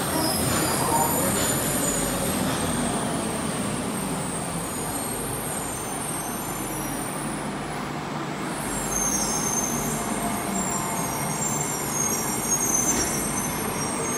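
A Bukit Panjang LRT rubber-tyred light rail car (Bombardier/Adtranz C801) running along the concrete guideway and arriving at the station, a steady rolling noise with high-pitched whines in the second half.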